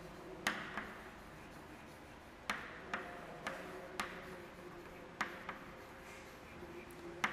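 Chalk tapping and clicking against a chalkboard as words are written: about nine sharp, faint taps at irregular intervals.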